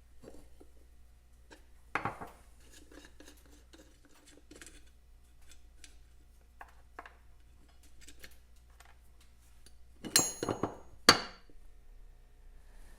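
Metal parts being handled on a workbench: light clicks and taps, a knock about two seconds in, then two sharp metallic clinks with a brief ring near the end.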